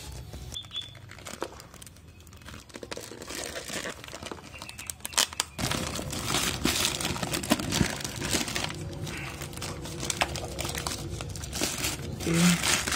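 Thin black plastic shipping bag crinkling and rustling as it is handled and opened, louder from about halfway through.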